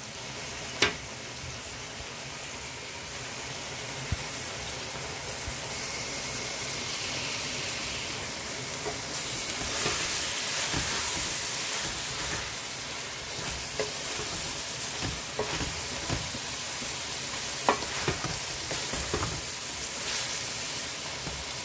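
Spinach, mixed vegetables and chicken sizzling in a pot as they are stirred with a wooden spoon, with a few sharp knocks. The sizzling is loudest about halfway through.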